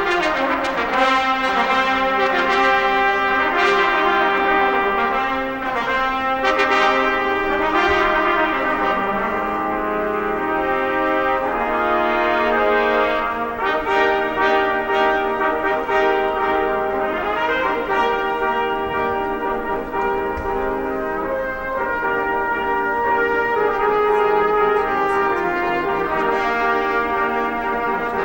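Instrumental music of slow, sustained chords in bright, brass-like tones, each chord held a second or more before moving to the next.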